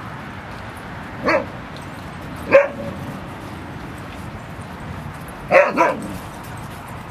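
A dog barking in play: four short barks, one a little over a second in, one about two and a half seconds in, and a quick double near the end.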